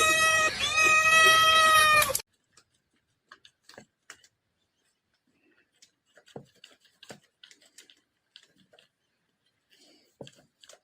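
A cat meowing loudly in two long, steady-pitched yowls that cut off abruptly about two seconds in. Faint scattered taps and clicks follow.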